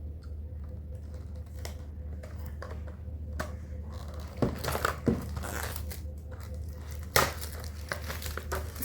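Packaging of a pair of wired earphones being handled and opened by hand: crinkling, tearing and rustling in irregular bursts, loudest about four and a half seconds in and again about seven seconds in, over a steady low hum.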